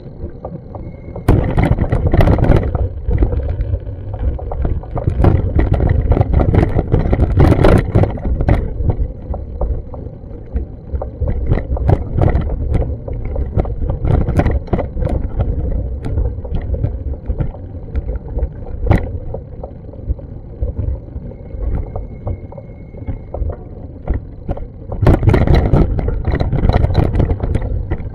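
Wind rumbling on a hand-held action camera's microphone, with frequent short clicks and knocks, swelling louder a few times.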